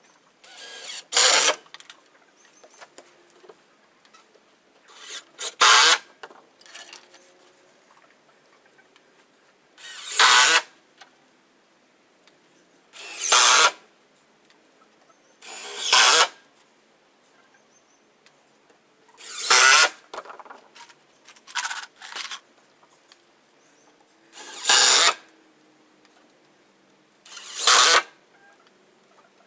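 Power drill run in short bursts, about nine times, a few seconds apart; each burst builds up and then stops sharply, as when working screws in porch deck boards.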